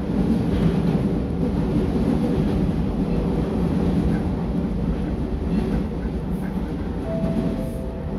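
Meitetsu 4000 series electric train running along the track, heard inside the driver's cab: a steady, even rumble of the moving train. A thin steady tone comes in near the end.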